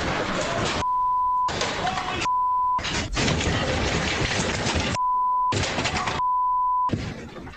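Loud rattling and clattering as a house shakes in an earthquake and things fall from the walls, picked up by an indoor Ring security camera's microphone. The noise is cut four times by a steady half-second beep, in the manner of broadcast censor bleeps.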